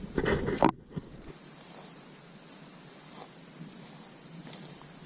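Insects in late-summer vegetation: a steady high-pitched drone with a quicker chirp repeating about three times a second. A short muffled rustle of handling noise comes at the very start, then a brief gap.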